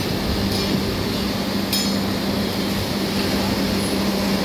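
A steady low machine hum with a few faint metallic clinks over it.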